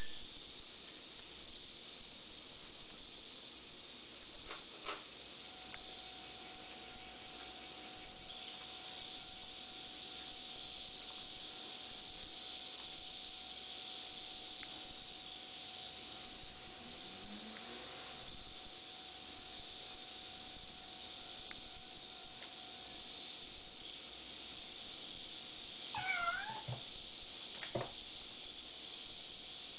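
Japanese bell crickets (suzumushi) singing: a continuous high, ringing trill that swells and fades in loudness. Near the end a cat gives a short meow.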